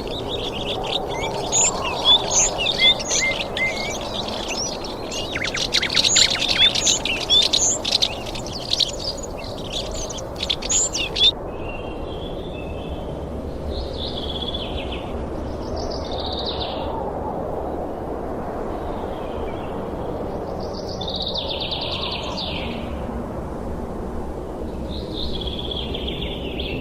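Small birds chirping and singing over a steady low background hiss. For the first ten seconds or so the chirps come thick and fast, mixed with sharp clicks. The sound then changes abruptly to separate short songs every two to three seconds.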